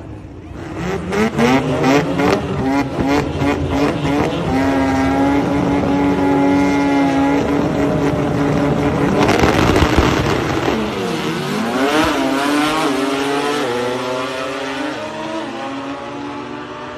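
Rotary-engined drag car revving in quick blips, then holding a high steady note on the line. It launches and pulls away down the strip, its pitch dipping and rising at a gear shift, then climbing again as it fades with distance.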